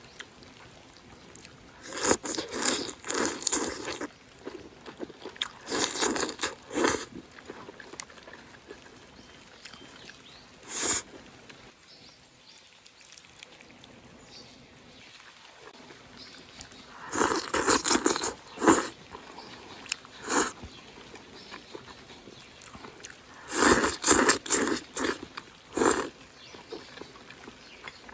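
Close-up eating: chewing and biting into cold-dressed chili peppers and eggplant with rice, in several bursts of a second or two separated by quieter pauses.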